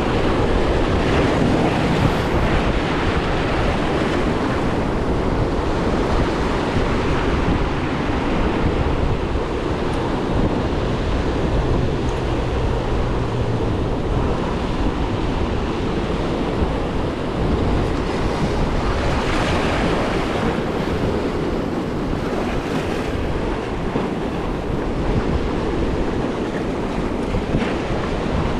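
Ocean surf washing against a jetty, a steady rush with a louder swell of wash about twenty seconds in, and wind buffeting the microphone.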